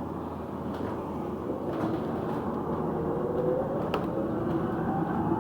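Cabin noise of an electric single-deck bus pulling away, its drive motor whining and rising steadily in pitch as it gathers speed. A few sharp knocks and rattles from the body come through, the clearest about four seconds in.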